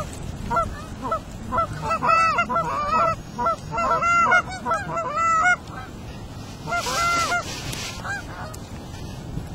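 Geese honking and clucking in a rapid, overlapping series of short calls, thinning to a few scattered calls in the last few seconds, over low wind rumble on the microphone.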